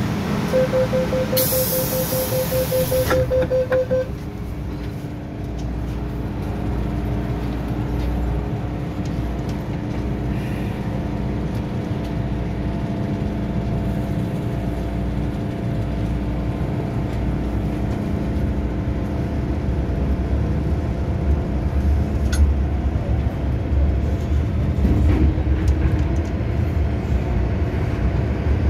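Inside an MTR M-Train: the door-closing warning beeps rapidly for about three seconds, with a burst of hiss partway through. The doors then shut and the train pulls away, a steady hum of several tones over a low running rumble slowly getting louder.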